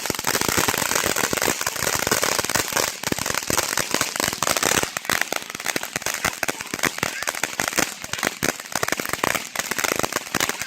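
Consumer firework going off with dense, continuous crackling and popping: many sharp cracks a second, without a break. It is really loud.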